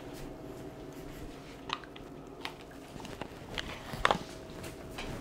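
Faint kitchen handling noises: four or five light clicks and knocks spread over a few seconds, as a dish is put away, over a faint steady hum.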